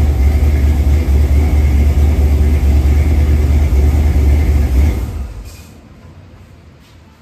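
1968 Dodge D100 pickup's engine idling steadily, then shut off about five seconds in, the sound dying away within about a second.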